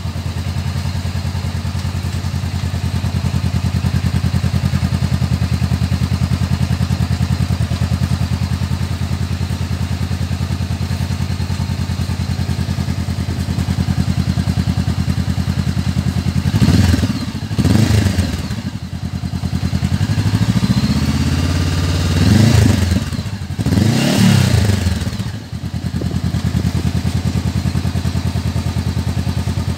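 Honda CB500X's parallel-twin engine idling steadily through its stock muffler, which has been cut open and modified. Past the halfway mark it is revved in several throttle blips, each rising and falling, before it settles back to idle.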